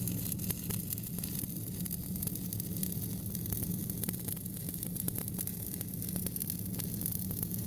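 Stick-welding arc with a 7018 electrode, crackling and sizzling steadily as a bead is run, over a steady low hum.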